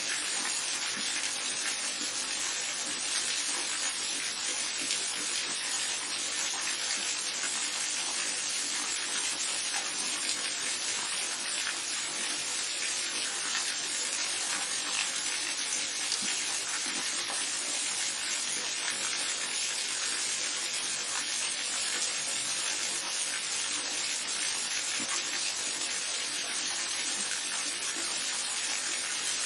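Steady rush of a waterfall with a babbling brook, an even hiss of falling and running water that holds level throughout.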